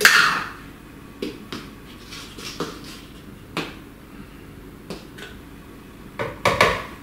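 A spoon scooping powder from a plastic tub, with scattered light clicks and knocks, then a quick cluster of louder knocks near the end as the spoonful is tipped into the blender jar.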